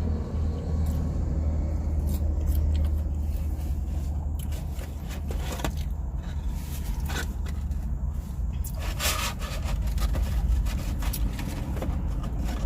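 Steady low hum of a car's running engine heard from inside the cabin, with scattered soft clicks and rustles of eating and handling food.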